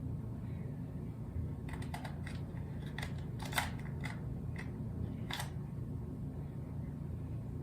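Small plastic clicks and taps of a camera battery being fitted and fumbled at a compact camera's battery compartment: a scatter of about a dozen irregular clicks between two and five and a half seconds in, over a steady low hum.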